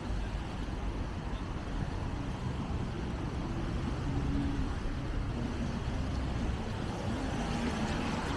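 Road traffic: cars and buses running past with a steady low rumble. A vehicle engine's hum stands out more clearly through the second half.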